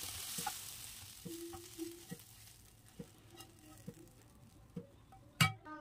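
Cooked pumpkin, onion and tomato being scooped from a hot frying pan into a steel bowl with a spatula. A faint sizzle fades out over the first second, then come scattered light clicks and scrapes, and a louder knock near the end.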